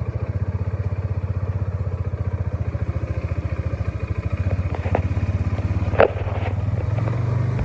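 Engine of a Ranger utility vehicle running steadily with an even, fast pulse, with a sharp clank about six seconds in; the engine sound cuts off suddenly at the end.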